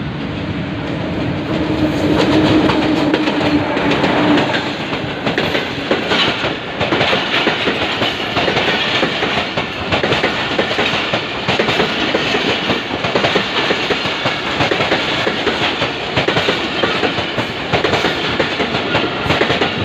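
Pakistan Railways express train passing at speed over a level crossing. A steady droning tone from the approaching locomotive peaks about two to four seconds in, then the coaches' wheels clatter rapidly over the rails for the rest.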